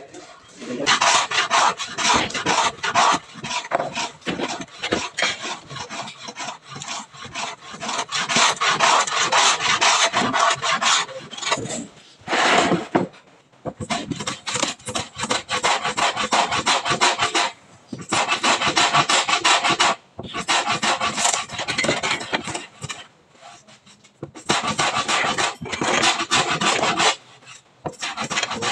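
Hand tool rasping and scraping along the edge of a ceiling board in fast back-and-forth strokes, in several long bouts with short pauses between them.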